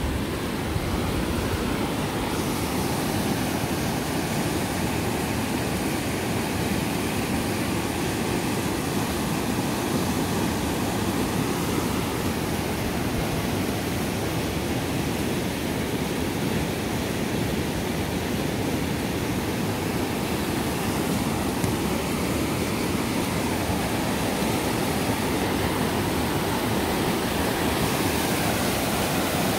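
Steady rush of fast-flowing floodwater from the typhoon.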